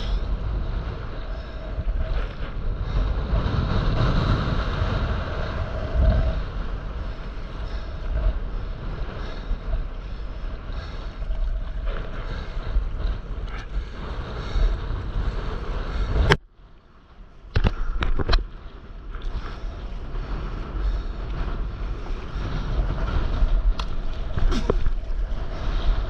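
Wind buffeting the camera's microphone over water rushing and splashing around a stand-up paddleboard riding sea waves. About two-thirds through, the sound cuts out for about a second, set off by a few sharp knocks.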